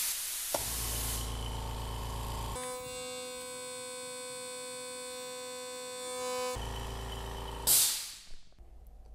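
Oil-free low-noise air compressor with an aluminium tank. There is a hiss of air, then a click about half a second in, and the motor starts and runs with a low hum, interrupted for a few seconds in the middle by a cluster of steady high tones. Near the end the motor stops with a short sharp hiss of released air.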